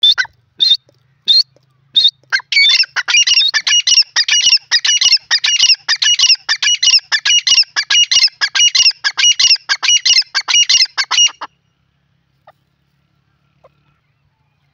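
Grey francolin calling: four single high-pitched notes in the first two seconds, then a fast, loud run of repeated call phrases that stops abruptly about eleven and a half seconds in.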